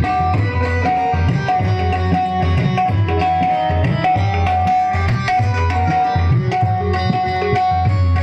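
Instrumental interlude of a Hindi devotional bhajan: tabla keeping a steady rhythm under a melody instrument playing a line of held notes.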